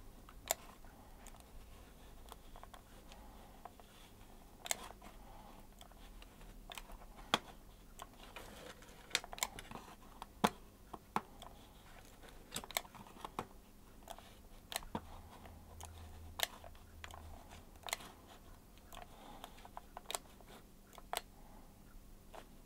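Mouse button clicking, sharp irregular clicks as the button is pressed and released for each paint stroke drawn in MacPaint, over a faint steady hum.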